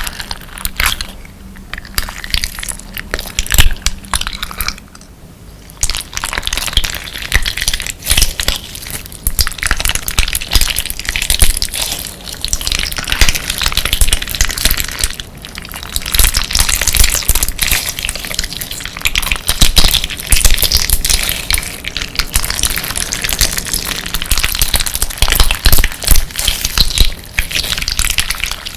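Slime packed with amber crystal-glass decorative stones being squeezed and kneaded, with dense crunching and clicking as the glass pieces grind together. It eases off briefly about five seconds in.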